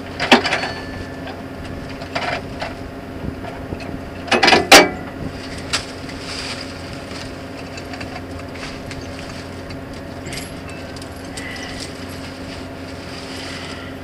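Steel roller chain, a broken No. 60 chain with a busted pin, clanking and rattling as it is pulled off a combine's drive by hand. A loud clatter of links comes about four and a half seconds in, with a few lighter clinks around it, all over a steady engine hum.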